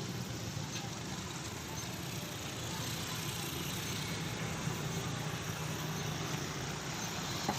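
Steady low mechanical rumble, even throughout, with no distinct knocks or events.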